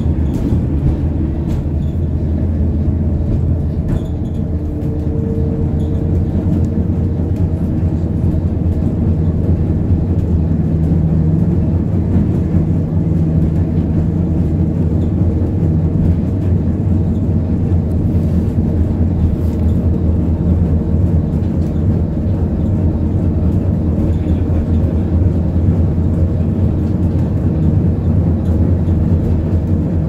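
Two-axle Gotha T57 tram running along the track, heard from on board: a steady low rumble of wheels on rails and running gear, with a faint motor hum that comes and goes.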